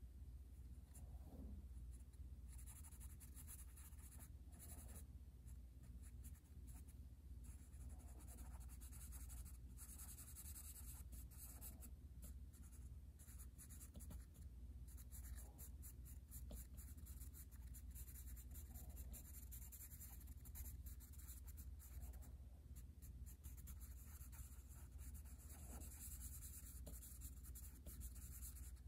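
Charcoal pencil scratching on drawing paper in quick, irregular scribbling strokes, faint, over a steady low hum.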